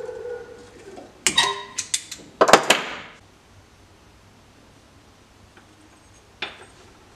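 Sharp metallic clanks and clinks of steel pieces and locking pliers striking a bench vise as a small steel tab is bent and handled: several in quick succession between about one and three seconds in, then quiet apart from one more click near the end.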